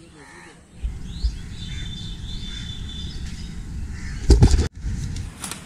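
Outdoor ambience of birds chirping over a steady low rumble, with a loud short burst of noise about four seconds in that cuts off abruptly.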